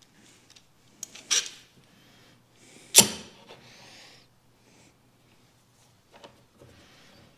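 Steel bar clamps being set and tightened across a glued-up cutting board: scattered metallic clicks and clanks, the loudest a sharp clank about three seconds in with a short rustle after it.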